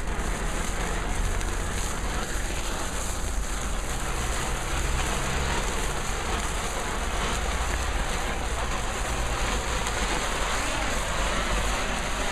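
Firework fountain strapped to an arm, burning and spraying a jet of sparks with a steady rushing hiss that holds level throughout.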